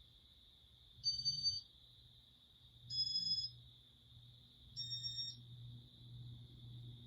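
Three short electronic beeps, about two seconds apart and each a little higher than the last, from the Inteli-Touch control of a Casablanca Spirit of Saturn ceiling fan, signalling speed commands. A low motor hum builds after the first beep as the fan picks up speed.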